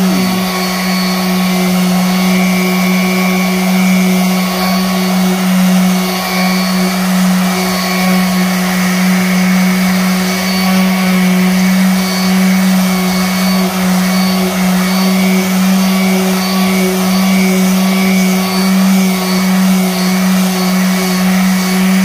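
Electric random orbital sander running steadily as it is worked over the face of a wooden chopping board, an even motor hum with the pad scrubbing the wood.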